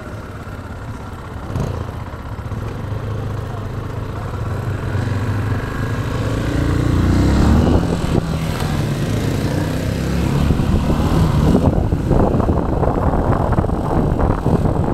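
Motorcycle engine ticking over at low revs, then rising in pitch as it accelerates away about six seconds in. It then runs on at street speed with road noise.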